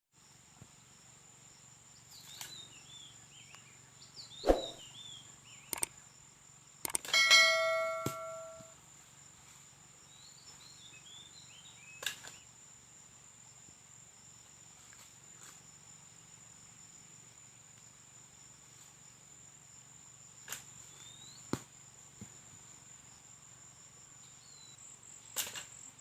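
Quiet rural ambience: a steady high-pitched whine, small birds chirping in short bursts, and scattered knocks and clinks. About seven seconds in, a metal object is struck and rings out for a second or two.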